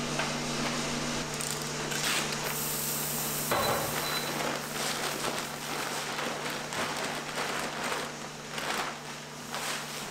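Plastic bag of green coffee beans rustling and crinkling as it is handled over a plastic bin, with a louder knock about three and a half seconds in. A steady low hum runs underneath.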